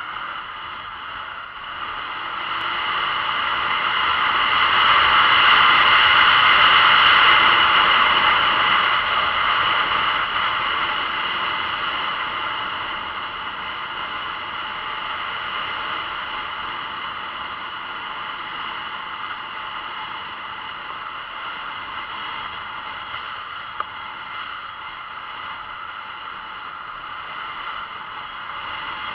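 Steady hiss of wind and road noise on the camera of a moving Honda CB500X motorcycle. It swells louder for several seconds from about four seconds in, then settles back to an even level.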